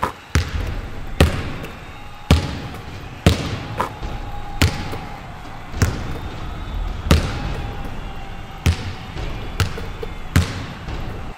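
Basketballs bouncing on a hardwood gym floor: about a dozen sharp bounces at uneven intervals, roughly one a second, each echoing briefly in the gym.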